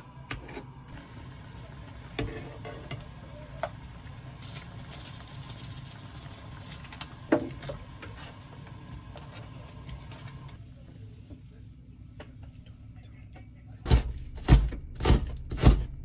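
Kitchen prep over a steady low hiss, with a few scattered knife knocks as a rolled egg omelette is sliced and vegetables go into a pot of boiling broth. Near the end a chef's knife chops green onions on a plastic cutting board, sharp strokes about two a second, the loudest sounds.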